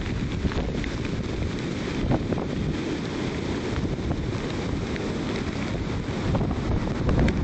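Wind buffeting the microphone over the steady rush of heavy storm surf breaking and washing up the beach, driven by an approaching hurricane. A stronger gust near the end.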